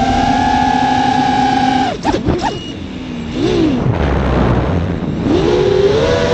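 FPV quadcopter's electric motors and propellers whining at steady throttle, heard from the onboard camera. About two seconds in the throttle is chopped: the whine drops out and blips up and down in pitch with wind rushing over the microphone, then climbs again near the end.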